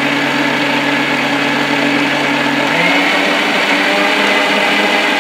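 Electric mixer grinder (mixie) running at a steady speed, grinding raw green mango with green chillies, ginger and sugar into a paste in its steel jar. Its low hum shifts slightly a little under three seconds in.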